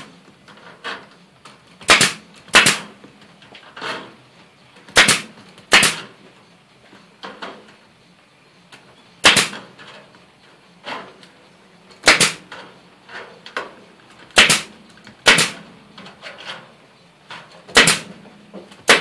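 Pneumatic staple gun firing staples into a wooden frame to fix chicken wire: about a dozen sharp shots, often in quick pairs, a few seconds apart, with fainter clicks between them.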